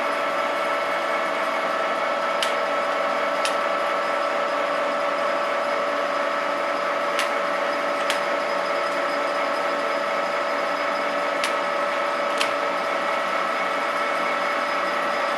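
TOS lathe running steadily, its gearing giving an even whine with a constant pitch. Light clicks come in pairs about a second apart, three times.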